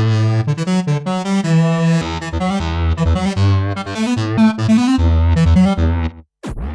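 Dave Smith Instruments Pro 2 synthesizer playing a keyboard-like patch: sustained notes over a moving bass line. It breaks off about six seconds in, and after a brief gap a new patch starts with a quick downward swoop.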